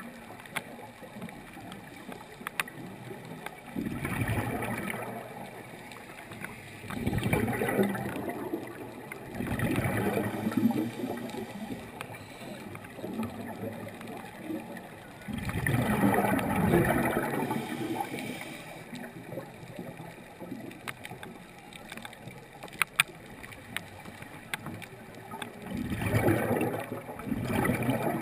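Water gurgling and bubbling in irregular surges a few seconds apart, over a steady background wash, with a few sharp clicks about two-thirds of the way through.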